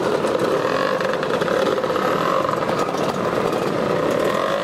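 A procession of motor scooters, Lambrettas and Vespas, riding slowly past with their small engines running together in a steady mass of engine noise. The sound cuts off suddenly near the end.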